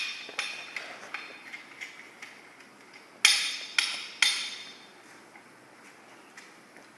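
Metal bicycle parts clanking as a BMX wheel is put back on: a run of light clicks, then three sharp metallic clanks with a brief ring about three to four seconds in.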